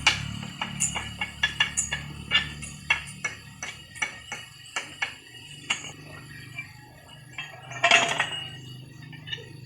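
Repeated sharp metallic clinks and knocks, about two or three a second, over a low steady hum; a longer clatter near the end is the loudest.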